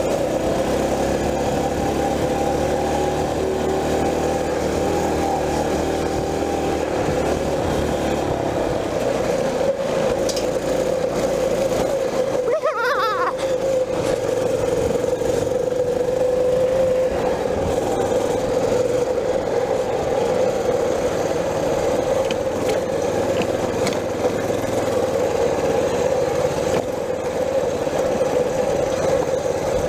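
Mini bike's small single-cylinder engine running steadily at speed along a rough dirt trail, with a brief dip about twelve seconds in.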